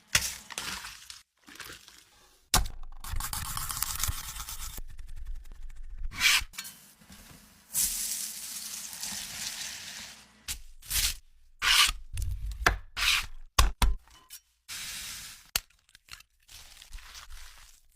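Kitchen cooking sounds cut together in quick succession: two stretches of steady hissing, like food frying in a pan, with short knocks and scrapes between them.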